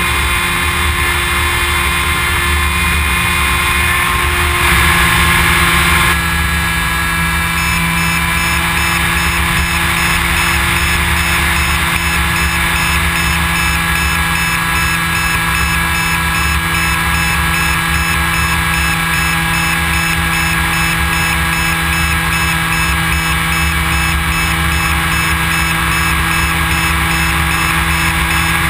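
Electric motor and propeller of an EPP foam FPV model plane in flight, heard from on board: a steady whine with several fixed tones. It is briefly louder about five seconds in, where the tones shift slightly as the throttle changes.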